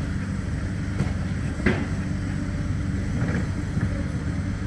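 Steady low rumble of wind buffeting the microphone, with one sharp click about a second and a half in.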